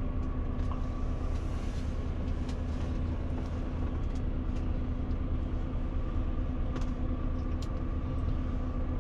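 Steady low hum of a tour coach's diesel engine and running gear, heard from inside the passenger cabin, with a steady tone over it and a few faint clicks and rattles.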